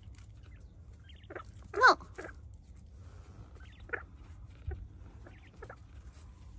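Quail in a sand bath giving short chirping calls. The loudest comes about two seconds in, with a few fainter ones scattered after it.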